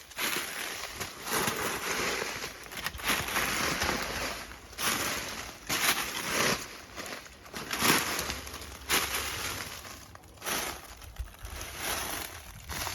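Hiking footsteps crunching on loose rock and gravel, in an uneven rhythm of surges about a second apart.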